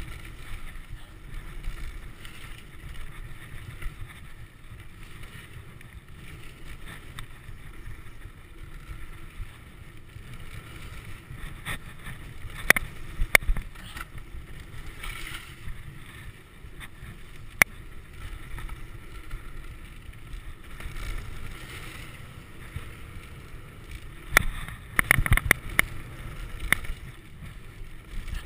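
Mountain bike riding down a dirt trail: steady wind on the microphone and tyre noise on the dirt, with sharp rattles and knocks from the bike going over bumps, a few around the middle and a quick cluster near the end.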